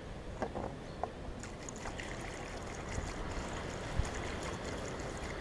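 Petrol pouring from a plastic fuel can through a funnel into a lawnmower's fuel tank: a faint steady trickle, with a couple of light knocks near the start as the can is handled.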